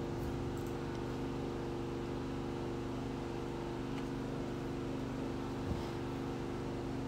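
A steady background hum made of several held tones, like a motor or fan running, with a faint click or two.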